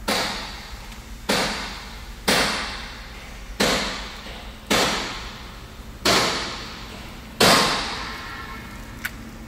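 A run of seven sharp knocks, one about every second and a quarter, each trailing off over about half a second, followed by a short click near the end.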